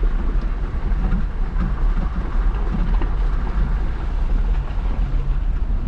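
Jeep driving off-road through a creek: a steady low rumble of engine and drivetrain.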